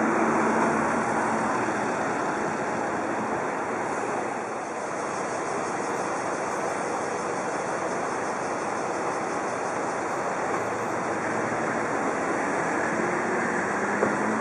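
Steady road-traffic noise at a busy street. A city bus's engine is heard close by at the start, and a faint engine hum returns near the end.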